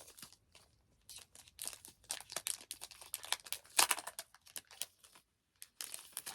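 Plastic or paper packaging crinkling and tearing as it is handled and opened, in irregular short rustles.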